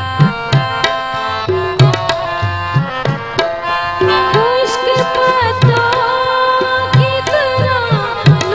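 Live song accompaniment: tabla strokes in a steady rhythm, the low drum notes gliding upward, under sustained melody notes; about halfway through, a long held note comes in over the drumming.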